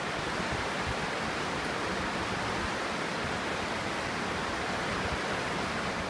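Steady rushing of the Smith River in flood, its fast, swollen current running rough after heavy rain.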